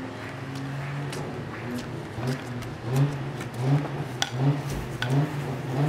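A person's voice imitating a car engine, a held hum and then rhythmic rising "vroom" pulses about every 0.7 s, with a few sharp clicks from a stick knocking on brick paving.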